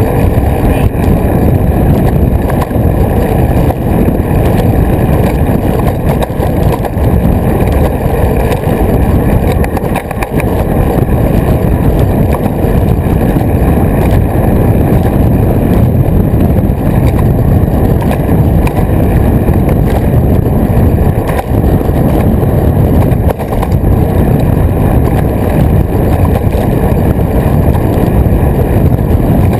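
Wind buffeting the microphone of a camera mounted on a moving road bicycle: a loud, steady low rumble with no breaks.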